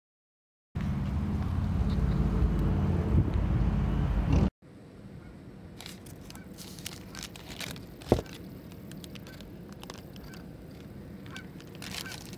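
A loud, low, pitched sound lasting about four seconds, of unclear source; then, after a sudden cut, a paper sandwich wrapper rustling and crinkling as a hand lifts it off a sub in a takeout box, with one sharp tap near the middle.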